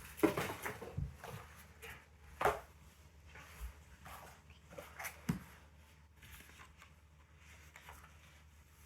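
Scattered light knocks, clicks and rustles of small bike parts and packaging being handled and dropped into a container, with a sharper knock about two and a half seconds in and two more about five seconds in.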